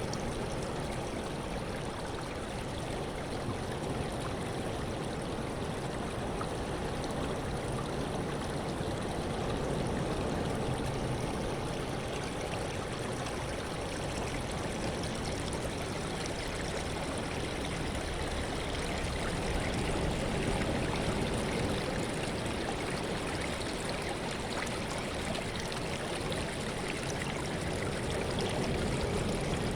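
Sea water washing and rushing steadily, swelling gently in loudness a few times.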